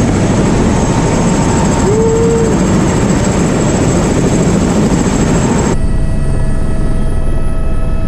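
Helicopter running on the ground with its rotor turning: loud, steady engine and rotor noise. A bit over halfway through the sound turns duller, with several steady whine tones, as heard from inside the cabin.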